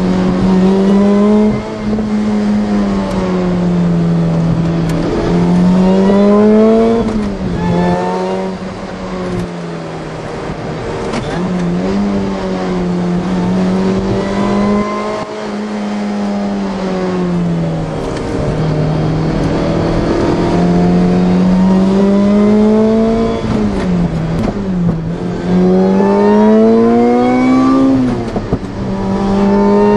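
Supercharged car engine running at 9.7 psi of boost, heard from inside the cabin while driving: the engine note repeatedly climbs under acceleration and falls when the throttle is lifted, with several sharp drops in pitch.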